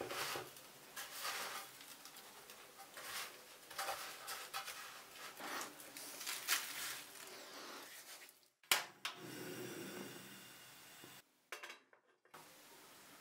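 Hands rolling and pressing ice cream in crushed digestive biscuit crumbs in a metal baking pan: irregular rustling and scraping of the crumbs with light knocks against the pan. About two-thirds of the way through comes one sharp click, followed by a steady faint hiss.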